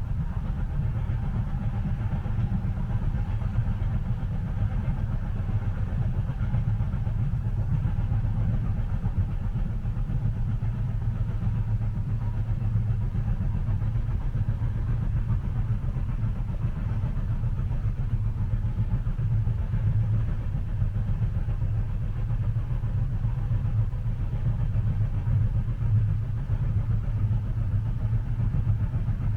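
Moving train heard from inside the passenger cabin: a steady, even low rumble with no breaks or changes.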